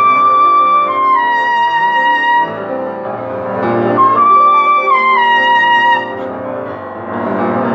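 Trumpet and piano playing a slow hymn arrangement: the trumpet holds a note that steps down to a lower one, pauses, then plays the same falling phrase again about four seconds in, over sustained piano chords.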